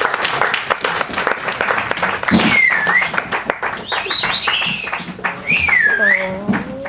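Theatre audience applauding with dense clapping, with several high whoops rising and falling over it from about two seconds in.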